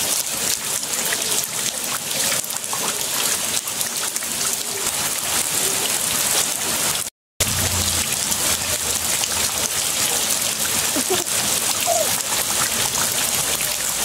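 Steady rain falling onto a concrete slab and a pool of muddy standing water: an even, dense hiss of drops splashing. The sound cuts out for a split second about halfway through.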